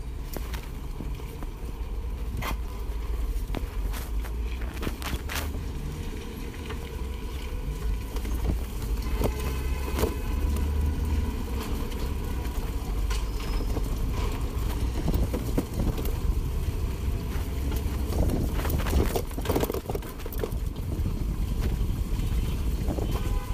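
Ride-along noise of an electric bike rolling over a rough, muddy, rubble-strewn road: a steady low rumble with scattered clicks and knocks from bumps and rattles, which come thicker near the end.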